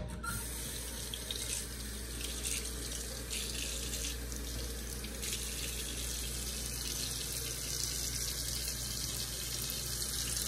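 Kitchen faucet left running, water pouring steadily into a stainless steel sink.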